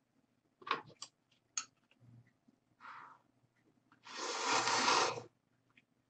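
Eating sounds over a bowl of instant noodles: a few light clicks of wooden chopsticks and a wooden ladle against the bowl, then a loud breathy noise lasting about a second, near the end.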